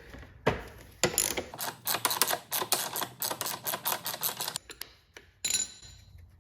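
Socket ratchet clicking rapidly as a 9/16 socket backs the nut off a mower drive-wheel axle, after a couple of sharp knocks. A short metallic clank comes near the end.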